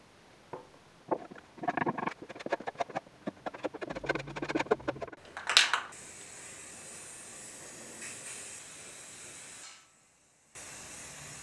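A few seconds of rapid rattling clicks, then an aerosol spray-paint can hissing steadily as it sprays the wooden table legs, broken once by a short gap near the end.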